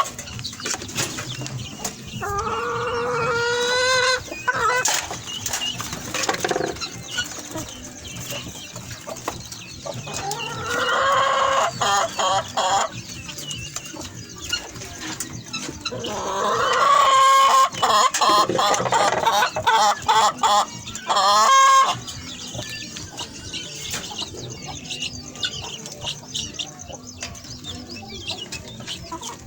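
Chickens clucking and calling, with three loud runs of drawn-out calls, the longest lasting several seconds, between quieter clucking.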